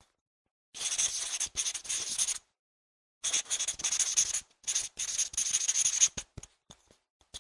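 Pen writing on paper: two runs of quick scratchy strokes with a pause of about a second between them, then a few light ticks near the end.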